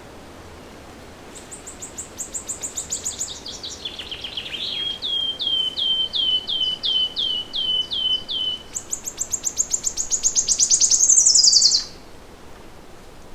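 A songbird sings one long, loud song of repeated notes. First comes a fast series falling from high pitch, then a run of clear downslurred whistles about two a second, then a rapid high trill that swells to its loudest and cuts off suddenly. A steady soft hiss of background noise lies underneath.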